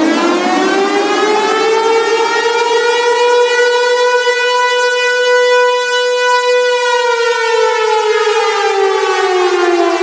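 Civil defense (air-raid) siren in one slow wail: its pitch climbs for the first couple of seconds, holds steady for about four seconds, then slowly slides down through the rest.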